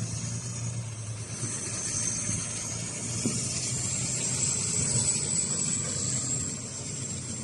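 Diesel engine of a HOWO 6x4 dump truck running as the truck drives off over a dirt yard: a steady low engine hum, with a high whine running over it.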